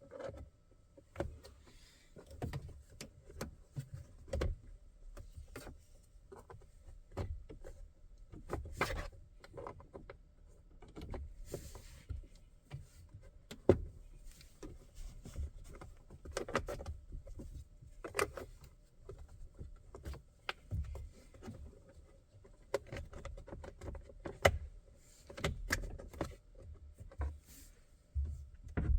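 Plastic steering-column shroud covers of a 2022 Chevy Colorado being pried apart with a pick: irregular clicks, knocks and rattles as the clipped top and bottom halves are worked loose, with two sharper, louder clicks.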